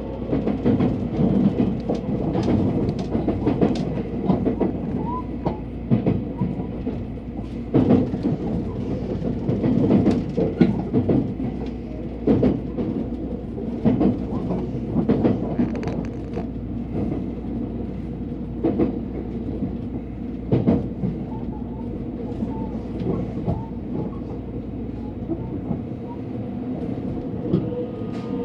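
Train running on the rails, heard from on board: a steady low rumble with irregular clicks and clunks of the wheels over rail joints and points, and a faint thin whine near the end.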